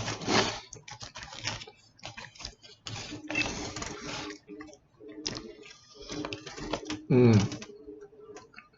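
Close-up eating sounds of someone chewing a burrito: wet mouth clicks, smacking and rustles in irregular bursts. About seven seconds in comes a short voiced sound that drops sharply in pitch.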